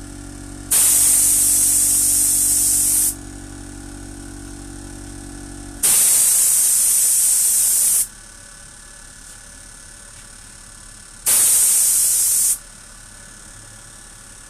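Spray painting: three bursts of loud spray hiss, each one to two seconds long, with a steady low hum underneath that stops about six seconds in.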